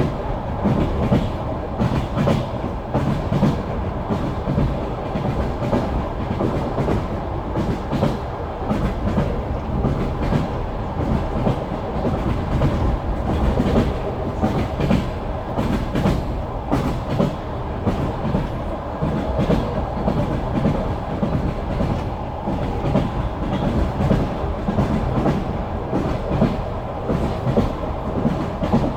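Passenger train wheels clattering over the rails, heard from inside a moving carriage: a steady low rumble with many short clicks.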